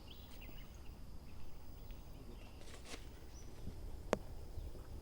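Quiet golf-course ambience with a faint steady high insect drone and a few bird chirps. About four seconds in comes a single sharp click: a golf club striking the ball on an approach shot.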